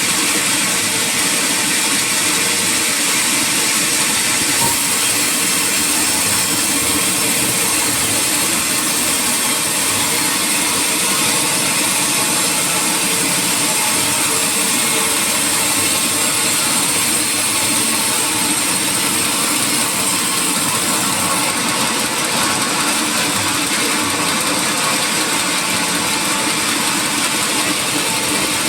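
Sawmill machinery running steadily: a continuous, unchanging mechanical din with a strong high hiss.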